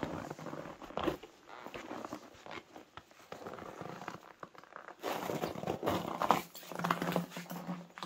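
Footsteps crunching and scuffing on snow-dusted stone and gritty ground, an irregular run of steps that grows louder in the second half, with a low steady tone near the end.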